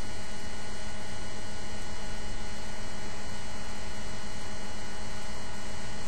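Steady hiss with a constant low electrical hum and faint steady tones, unchanging throughout, with no distinct event standing out.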